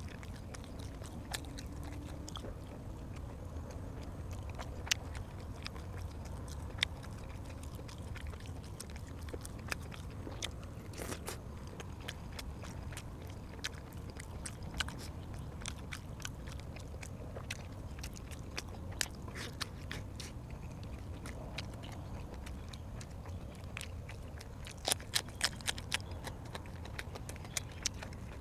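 A person chewing and biting food close to the microphone, with scattered wet mouth clicks and a quick run of clicks near the end, over a steady low hum.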